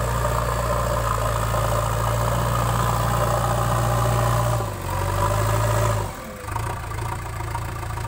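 JCB 3DX backhoe loader's diesel engine running steadily as the front bucket lifts a load of soil. The engine note shifts about four and a half seconds in, and the sound drops sharply in level about six seconds in.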